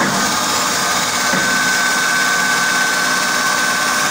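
Bacci TSG/2T oval tenoning machine's cutter head running at steady speed, a constant high whine over even machine noise.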